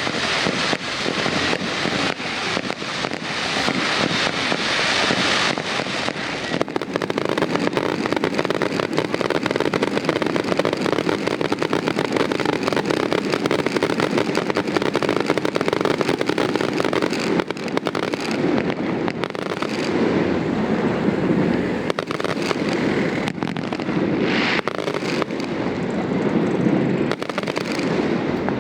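Fireworks going off in a continuous dense barrage of rapid pops and crackling.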